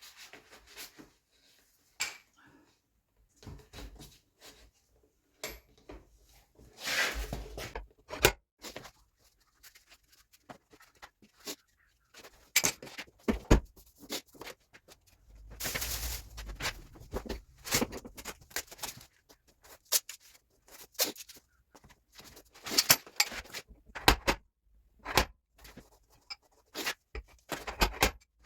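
Irregular clicks, knocks and short scraping noises of hand work on a car's body panels, with no steady machine sound.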